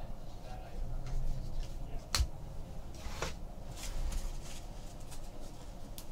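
Baseball trading cards being handled and flipped through, with light rustling and a few sharp clicks, the loudest about two seconds in.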